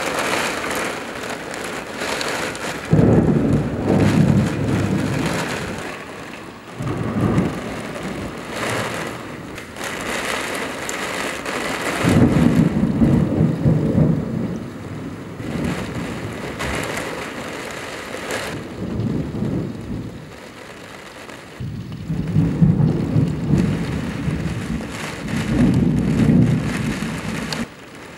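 Heavy rain falling steadily, with repeated rolls of thunder over it. Long rumbles come about three seconds in, around twelve seconds and twice near the end, with shorter rumbles between.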